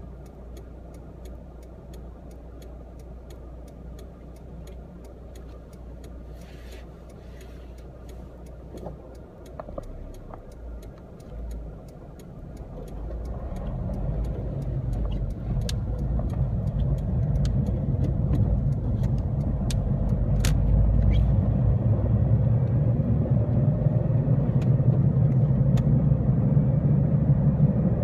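Car engine and road rumble heard from inside the cabin. It is low and quiet at first with a steady ticking, then grows much louder from about halfway through as the car speeds up, and the ticking stops.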